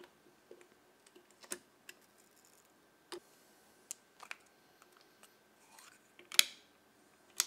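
Small clicks and taps of hands handling a Canon F-1 35 mm film camera and a plastic film canister while loading film: about half a dozen sharp clicks spread out, the loudest a little past six seconds in.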